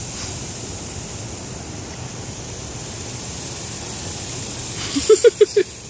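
Steady rushing noise of a shallow river running over riffles, with wind on the microphone. About five seconds in, a person's voice gives four quick syllables.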